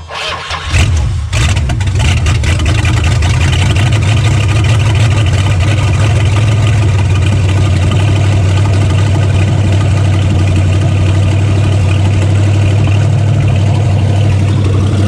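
1969 Plymouth Fury's 400 big-block V8 cranking on the starter, catching about a second in, then running loudly and steadily at its first start of the year.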